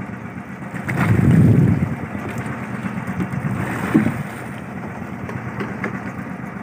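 Fishing boat's engine running steadily with a low hum. About a second in there is a brief loud low-pitched surge, and near four seconds a single sharp knock.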